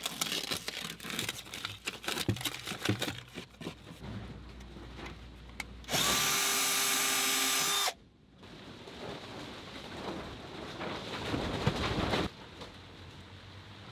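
Crackly peeling of masking tape, then a power drill running steadily for about two seconds before it cuts off abruptly, followed by rougher tool and handling noise.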